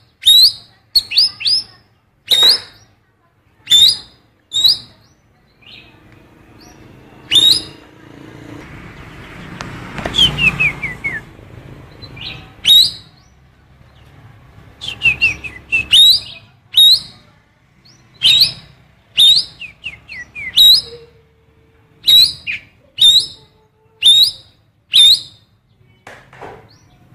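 Cucak keling biru songbird calling repeatedly with short, sharp upswept chirps, the female oriental magpie-robin (kacer) calls it imitates, with a few quick runs of descending notes in between.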